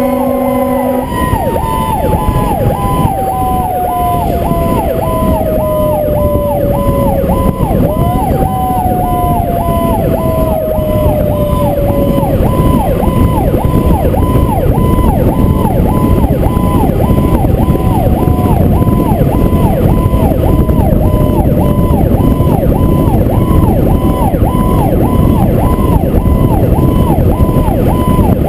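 Fire truck sirens on an emergency run: an air horn blast stops about a second in, then an electronic siren pulses rapidly and steadily while a mechanical siren winds down in two long falling tones, spun back up once about eight seconds in. Heavy wind and road noise on the outside-mounted microphone run underneath.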